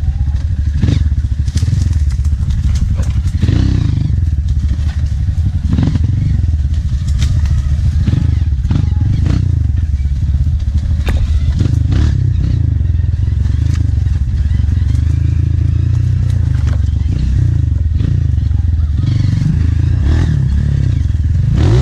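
Honda CRF trail bike's single-cylinder four-stroke engine running steadily at low revs on a rough descent, with frequent knocks and clatter. Near the end the revs rise.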